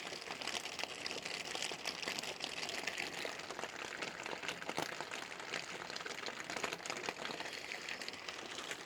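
Steady rain pattering on a tarp-covered roof, heard from inside as a dense, even patter of many tiny ticks.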